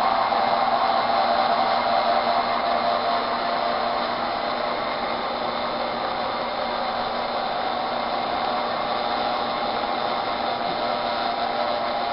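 Model freight train cars rolling past on the track: a steady running noise with a faint hum, easing slightly as the train goes by.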